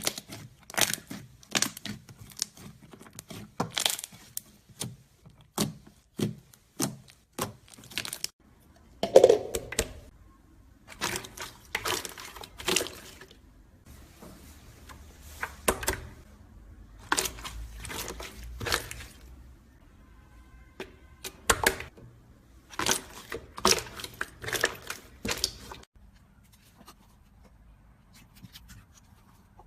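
Slime being handled, giving off irregular sharp pops and clicks, with a louder pop about nine seconds in; the pops die away near the end.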